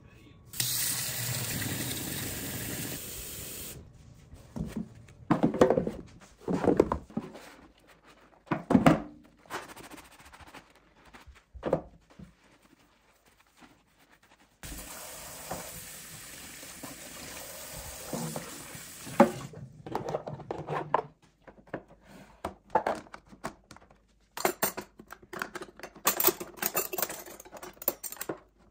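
Kitchen tap running into a stainless steel sink in two long stretches while dishes are washed, with dishes knocking in between. Near the end, metal cutlery clinks as it is dropped into a plastic drawer organizer.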